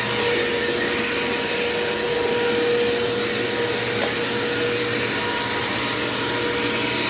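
Dirt Devil Quick Power vacuum cleaner running steadily on a kitchen floor, a constant motor whine over the rush of air.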